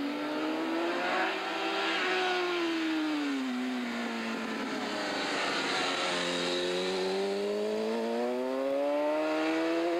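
A racing motorcycle's engine under hard throttle through a bend: the note climbs, drops for a couple of seconds as the bike comes past, then climbs steadily again from about six seconds in as it accelerates away.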